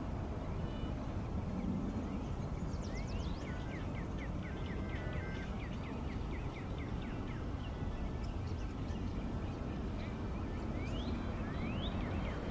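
Small birds chirping in quick series of short rising notes, twice, over a steady low outdoor rumble.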